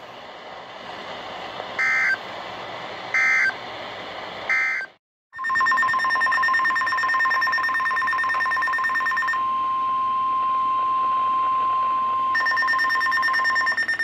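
NOAA Weather Radio sounding an Emergency Alert System activation for a severe thunderstorm warning. Three short bursts of screechy SAME digital header tones come about a second apart, then after a brief drop-out the steady single-pitch warning alarm tone holds. The receiver's own higher pulsing alert beep sounds over it, stopping for about three seconds midway and then returning.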